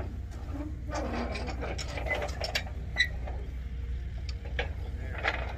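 Scattered clicks and light metallic knocks from rusty old farm machinery being handled, over a steady low rumble.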